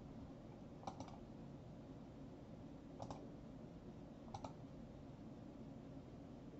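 Near silence with three faint clicks from a computer input device, the first and last as quick double clicks.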